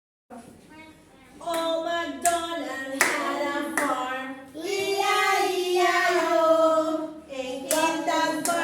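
A voice singing a children's song, with hand claps in time, about one every three-quarters of a second in the first half and a couple more near the end.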